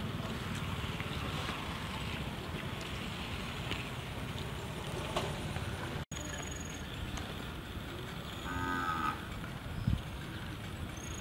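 Cattle mooing once, briefly, about two-thirds of the way through, over a steady outdoor noise bed.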